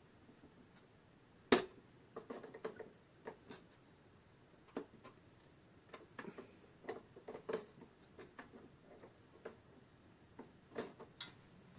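Irregular small clicks and taps of metal clock parts and tools being handled during disassembly, with one sharper click about a second and a half in.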